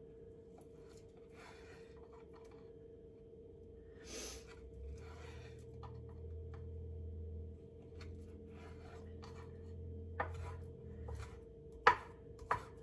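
Chef's knife slicing chicken sausage on a cutting board: soft, irregular cutting strokes, with a few sharp knocks of the blade on the board near the end. A faint steady hum runs underneath.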